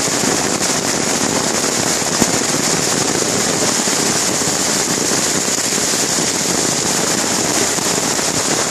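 Heavy hailstorm: hailstones and rain pelting down in a dense, steady crackle of many small impacts.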